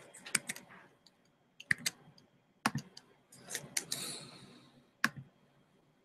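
Scattered sharp clicks and taps from operating a computer's mouse and keyboard, in small irregular groups.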